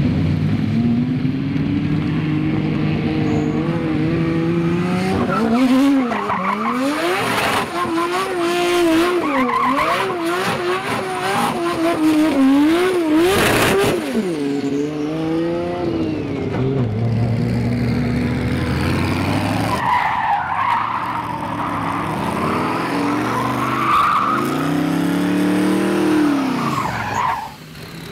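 Drift car engine revved hard, its note wavering up and down quickly as the throttle is worked, over tyre squeal as the car slides. Near the end the engine note rises and falls again.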